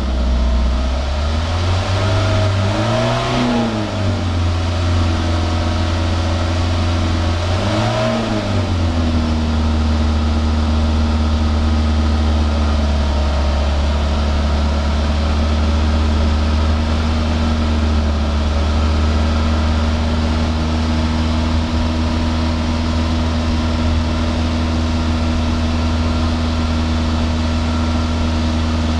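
Toyota 2SZ-FE 1.3-litre four-cylinder engine heard at the tailpipe, free-revved a few times in the first eight seconds, then settling to a steady idle. The engine has just had a WAKO'S RECS intake-cleaner treatment and is burning off the cleaner.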